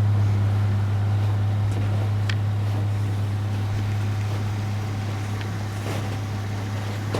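Vehicle engine running with a steady low hum, easing slightly quieter over a few seconds.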